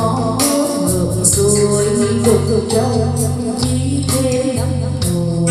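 Karaoke backing track with a beat and a woman singing into a wireless microphone, played through a portable karaoke speaker.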